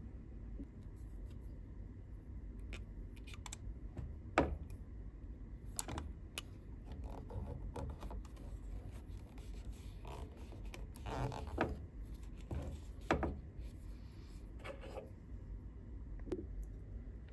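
Blue vinyl electrical tape being pulled and pressed by hand around a battery pack: quiet scattered scratches, crinkles and clicks, with a sharper click about four seconds in and a cluster of tape handling sounds around ten to thirteen seconds.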